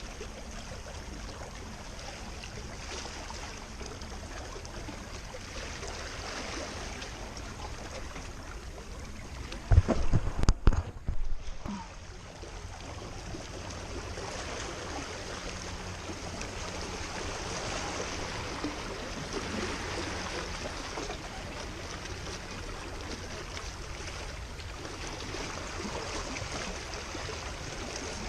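Steady wash of moving water, with a cluster of loud, low thumps about ten seconds in.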